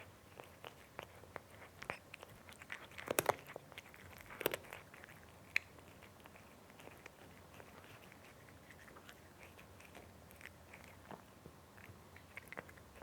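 A cat chewing and crunching its food: irregular short crunches and chewing clicks. They come thick and loudest in the first five seconds, then thin out and grow fainter.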